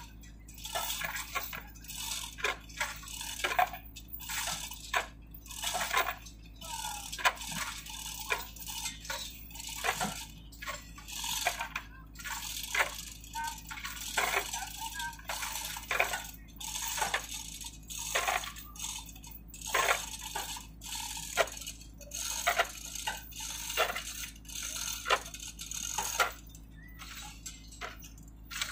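Chain hoist rattling as a hanging line-array speaker is hauled up a truss tower: a run of irregular metallic clicks and clinks, a few each second.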